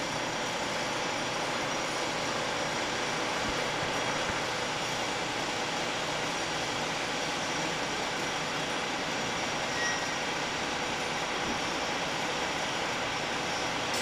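Steady background noise of running machinery, an even hiss-like drone with faint steady tones, and a brief faint tone about ten seconds in.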